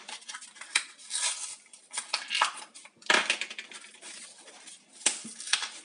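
Crackling and tearing of a cardboard-and-plastic battery blister pack being opened by hand, with irregular clicks as the AA batteries are pushed out and handled.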